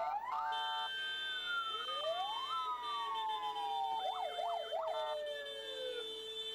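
Several ambulance sirens sounding at once, their wails overlapping as they rise and then slowly fall, with a quick up-and-down yelp about four seconds in.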